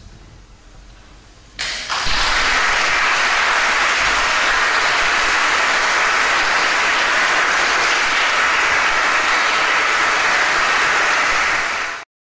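The last sound of the choir's final chord fading, then audience applause breaking out about a second and a half in and continuing as steady clapping.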